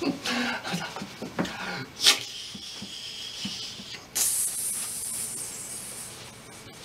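A mouth-made sound effect: a short scratch like a match being struck, then a fizzing hiss like a lit firework fuse, louder about four seconds in and fading away.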